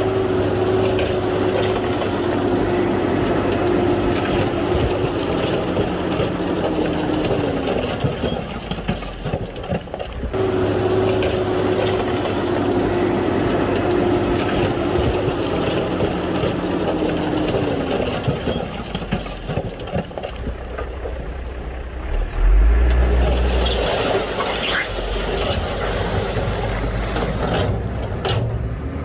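Heavy Shantui bulldozer's diesel engine working under load. Twice its pitch holds and then sags as it pushes, and a heavy low thump comes near the end.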